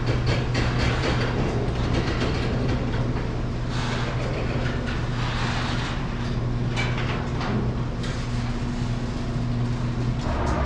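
Electric garage door opener running steadily, raising a sectional garage door: a constant motor hum with the door's rollers rattling and clicking along the tracks.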